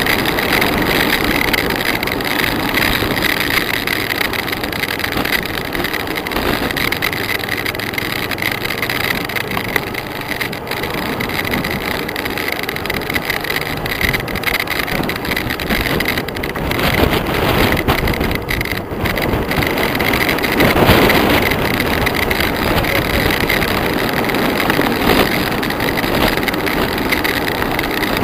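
Steady rush of wind and road noise while riding on a mountain road, mixed with the engines of passing motorcycles and cars. The noise swells about two-thirds of the way through as traffic goes by.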